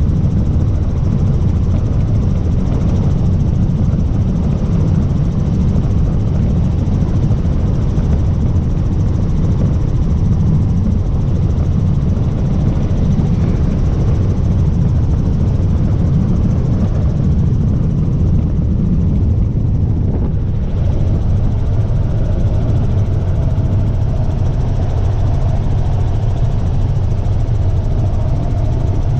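Helicopter's engine and rotor drone, loud and steady, with a steady higher hum joining in a little past two-thirds of the way through.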